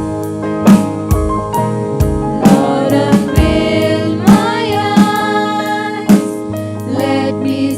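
Gospel worship music: voices singing over keyboard chords with a steady drum beat.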